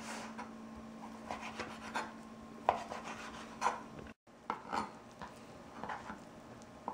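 Knife cutting grilled steak into small cubes on a cutting board: irregular taps and scrapes of the blade, with a brief break just after four seconds.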